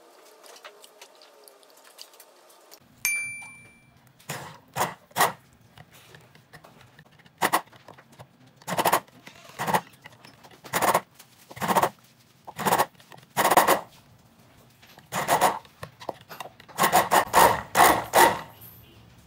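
A stick blender is run in short pulses, more than a dozen bursts of under a second each, churning cold-process soap batter of lye and coconut oil in a glass measuring cup to bring it to trace. About three seconds in there is a single ringing clink against the glass cup.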